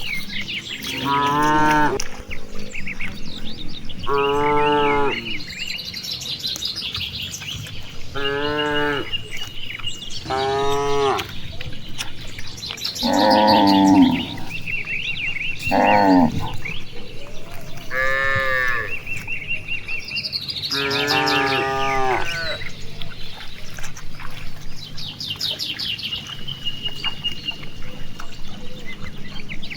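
Cows mooing one after another, about eight calls each a second or two long, over steady chirping of small birds.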